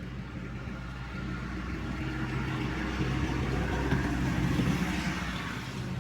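A motor vehicle's engine runs steadily. A rush of road noise swells, peaks about four to five seconds in, then eases off.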